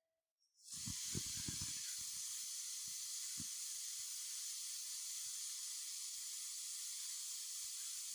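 Pressure cooker whistling: steam jets out from under the weight valve in a steady high hiss that starts about a second in, with irregular low sputtering knocks from the weight during the first few seconds and a few more later. The cooker has come up to pressure and is venting.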